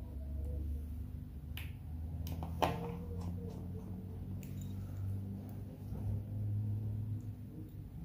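A few small, sharp clicks and taps of a precision screwdriver and tiny screws against an iPhone 6S's metal frame and charging-port bracket as the screws are driven home, the loudest about two and a half seconds in, over a steady low hum.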